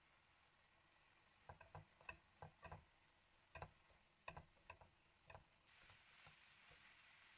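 Faint light knocks and clicks, about a dozen irregularly spaced over a few seconds. They are followed near the end by a faint steady hiss that starts abruptly.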